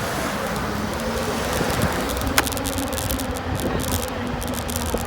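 Electric bike hub motor whining steadily while riding, over wind and road noise, with light rattling clicks and one sharper click about two and a half seconds in.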